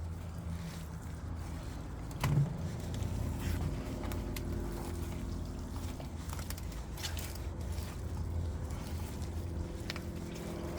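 Steady low hum of an engine running, with a few light clicks and knocks, the clearest about two seconds in.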